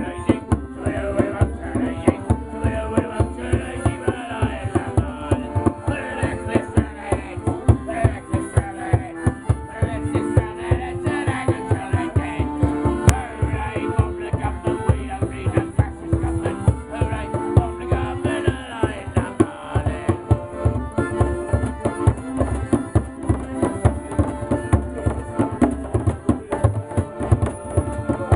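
Piano accordion playing a lively folk tune over a steady beat beaten out by hand, with a man singing along.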